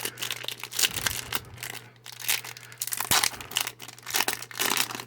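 Foil wrapper of a Yu-Gi-Oh Speed Duel booster pack being torn open and crinkled: a run of irregular crackles and tearing sounds.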